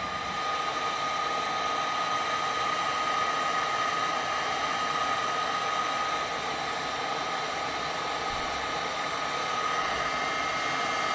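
Hot-air blower running steadily: a rushing hiss with a steady whine, heating a phone's edges to soften the adhesive under the screen.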